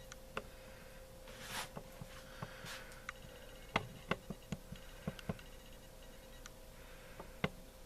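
Quiet room tone with a steady hum and a scattering of faint, irregular clicks and taps, with a couple of brief soft rustles early on.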